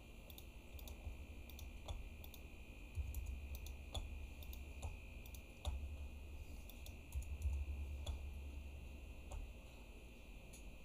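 Irregular clicks and taps from a computer mouse and keyboard, one every second or so, over a low steady background rumble.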